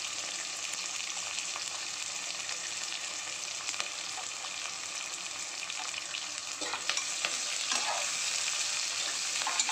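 Onions, green and dried red chillies and garlic sizzling steadily in hot oil in a pressure cooker. A slotted steel spoon stirs them, scraping and clinking against the pan a few times in the second half.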